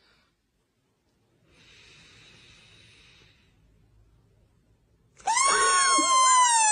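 A faint hiss, then about five seconds in a loud, high-pitched wailing cry that slowly falls in pitch.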